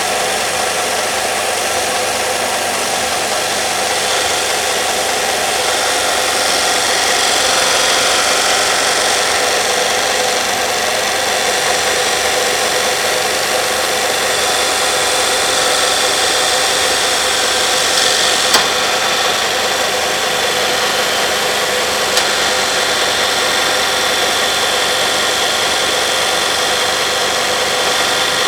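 Belt sander running steadily, its abrasive belt grinding against a workpiece, with two brief sharp clicks partway through.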